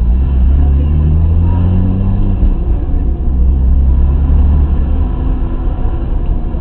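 BMW E30 with an M50B20 2.0-litre straight-six running, heard from inside the cabin. The revs rise over the first two seconds or so, then settle into a steady low drone as the car drives slowly on.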